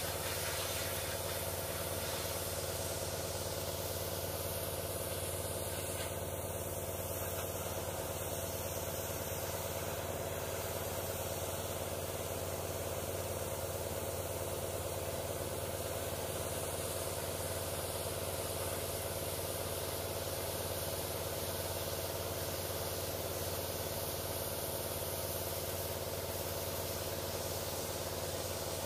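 Engine-driven portable pressure washer running steadily, its engine drone under the hiss of the high-pressure water jet striking the riveted steel plate of a locomotive boiler.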